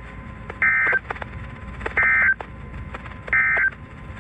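Emergency Alert System end-of-message data bursts: three short bursts of buzzy two-tone digital data, about a second and a half apart, marking the end of the weather warning broadcast, over a steady hiss of radio reception.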